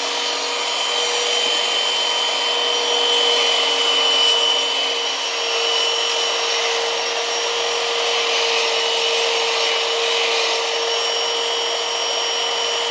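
Electric power sander running at a steady pitch while a butcher knife's edge is ground against its abrasive: a constant motor whine over a grinding hiss.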